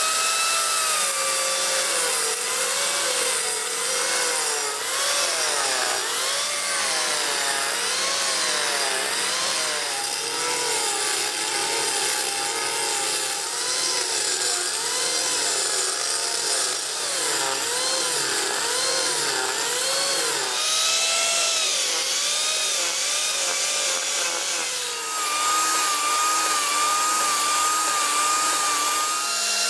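Angle grinder fitted with an Arbortech carving disc cutting into a round of firewood, its motor whine dipping and recovering in pitch again and again as the blade bites and eases off. About 25 seconds in this gives way to a higher, steadier whine from an Arbortech Mini Grinder with a Mini Industrial blade cutting grooves into the wood.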